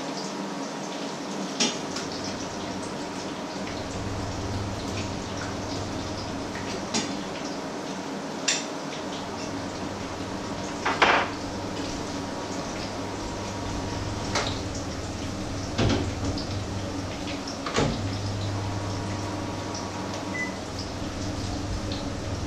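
Patties frying in oil in frying pans with a steady sizzle over a low hum, broken by scattered clinks and knocks of utensils against pans and plates; the loudest clatter comes about eleven seconds in.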